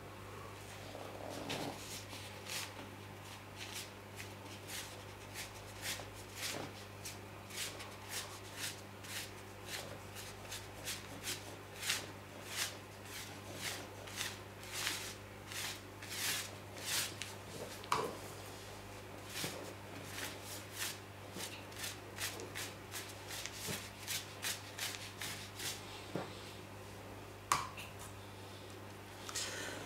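Chinese ink brush sweeping across paper in quick, repeated strokes, each a short dry swish, with the strokes thinning out near the end.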